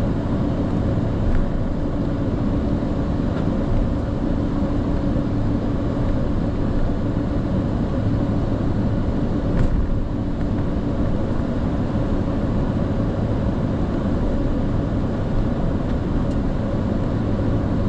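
Steady cockpit noise on a Boeing 747-400 flight deck during taxi: a constant low hum and rush of engines and airflow at an even level. There is one short click about ten seconds in.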